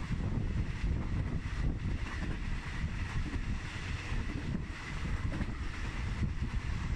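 Wind buffeting a microphone held out the window of a moving train, over the train's steady running rumble.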